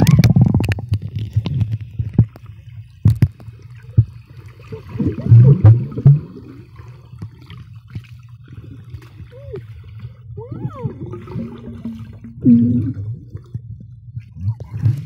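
Pool water heard from a camera submerged inside a homemade waterproof case: a muffled, low gurgling rumble, with a few louder sloshing surges as swimmers kick past and some sharp clicks.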